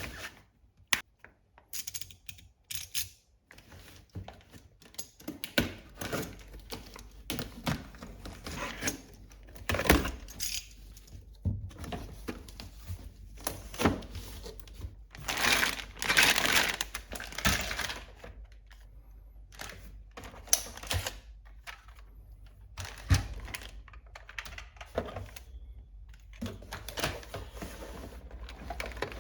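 Small plastic toy pieces clicking, tapping and knocking as they are handled and unpacked, with a few seconds of rustling packaging past the middle.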